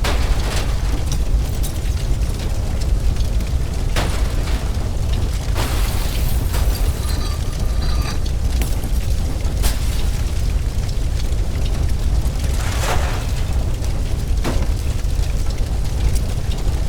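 Fire burning inside a house: a steady deep rumble of flames with constant crackling and a few sharp cracks of breaking debris.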